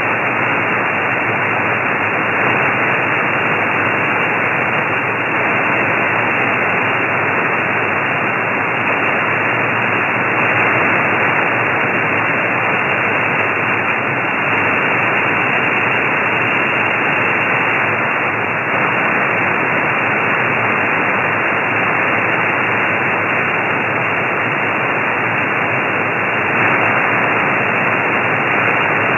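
Steady hiss and static from an SDRplay shortwave receiver tuned to 8933 kHz upper sideband on an open channel with nobody transmitting: a flat, even rush with no highs or deep lows, like a radio voice channel.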